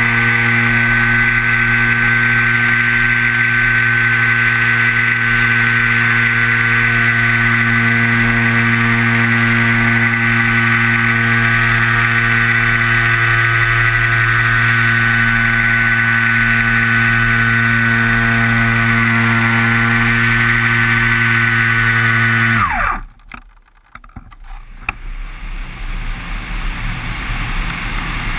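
Radio-controlled model plane's motor and propeller running steadily at a high pitch, heard from a camera on the fuselage. About 23 seconds in the pitch drops sharply and the motor cuts out, leaving rushing wind over the microphone as the plane glides down.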